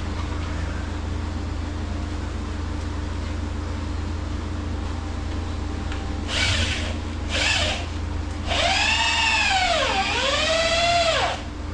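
Power drill running in two short bursts, then a longer run of about three seconds whose motor pitch sags under load and recovers before it stops, as when driving a screw into the rail's framing.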